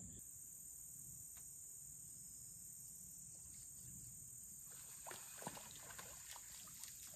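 Quiet riverbank with a steady high drone of crickets. Over the second half come a few light clicks and rustles from handling a fishing rod and reel.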